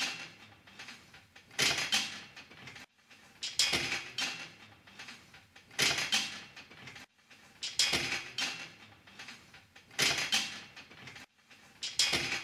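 Cable pulldown machine worked in steady repetitions: a short sliding, rasping noise from the cable and weight stack on each pull, about one every two seconds.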